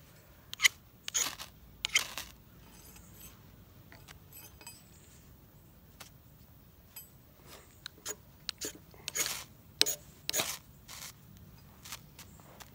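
Knife spine scraped hard down a ferrocerium rod, throwing sparks onto tinder in short, sharp rasping strokes: a few in the first two seconds, then another run of strikes in the second half.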